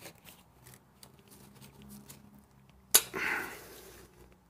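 Locking pliers twisting a seized, rusted screw on a Toyota e-locker actuator's motor housing: faint creaks and ticks, then about three seconds in a sharp crack as the screw breaks free, followed by a brief scraping as it starts to turn.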